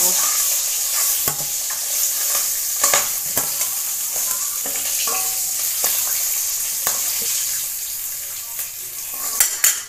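Fried fish heads sizzling in hot oil in a metal kadai as they are lifted out with a steel spoon, which clicks and scrapes against the pan now and then. The sizzling grows quieter over the last couple of seconds as the pan empties.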